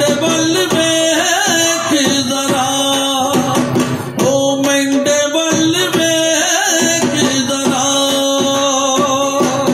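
Punjabi folk music for a Luddi dance: singing over a steady drum beat, played loud with no break.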